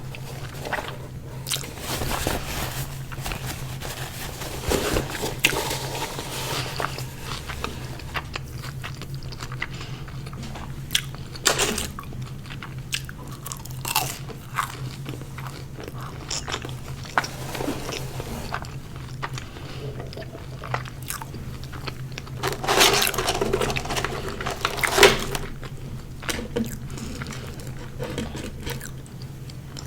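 A person biting and chewing crunchy fast food, with irregular crunches and a few louder bites, the loudest about three quarters of the way through.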